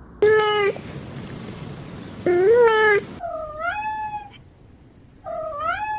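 Ginger cat meowing four times, separate calls of half a second to a second each.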